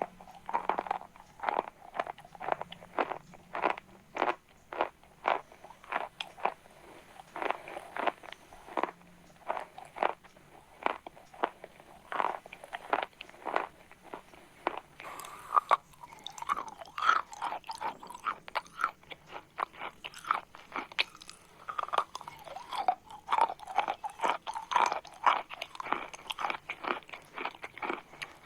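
Chalk being bitten and chewed: a steady run of sharp crunches, about two or three a second, becoming denser and more continuous about halfway through.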